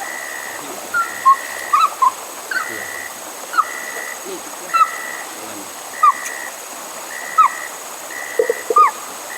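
Repeated wild animal calls: a steady tone pulsing on and off about once a second, with short bent chirps recurring about once a second in between. Under them runs a steady high hiss of insects and an even wash of flowing river water.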